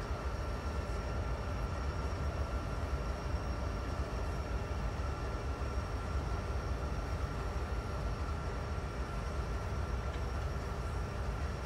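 Norfolk Southern diesel-electric locomotive idling at a standstill: a steady low rumble, with a thin steady whine above it.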